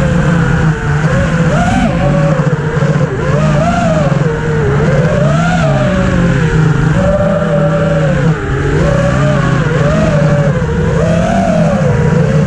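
EMAX Hawk 5 FPV racing quadcopter's brushless motors and propellers whining, the pitch rising and falling continuously with throttle as it is flown, heard from a camera mounted on the quad.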